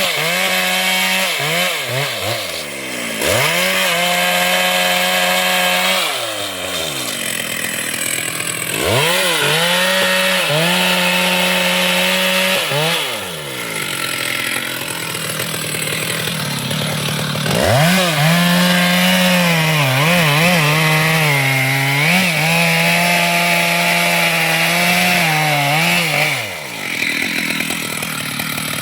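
Chainsaw revved to full speed in four long runs, dropping back toward idle between them. In the longest run, the last one, its pitch dips and recovers repeatedly as it works under load in the wood.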